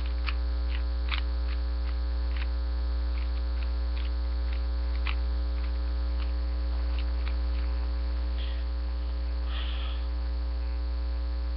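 Loud steady electrical hum from the webcam's microphone, with scattered faint clicks of a 3x3 Rubik's Cube's layers being turned, several a second at first and sparser later.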